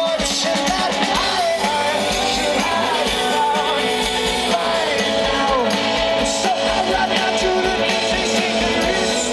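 Live rock band performing, with a lead singer over the band and a steady drum beat.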